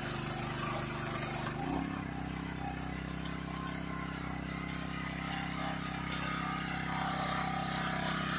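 Pressure washer running, its high-pressure spray hissing; about a second and a half in the spray stops and the motor settles to a lower, steady note as the washing ends.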